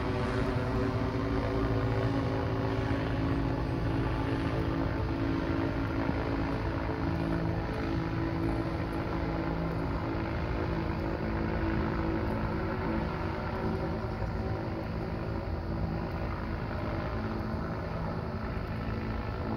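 The MetLife blimp's propeller engines running overhead: a steady hum with several pitched tones that slowly fades as the airship draws away.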